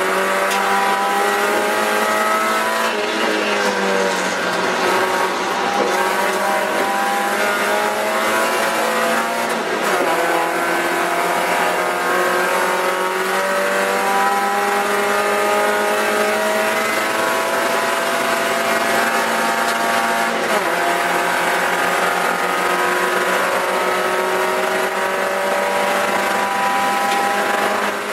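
Spec Miata's four-cylinder racing engine running hard, heard from inside the cockpit. Its pitch climbs slowly under throttle and drops back sharply three times, about four, ten and twenty seconds in.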